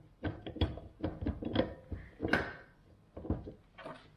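Irregular knocks and clatter of metal hand tools as a homemade puller is worked on a seized diesel injector stuck in an aluminium cylinder head.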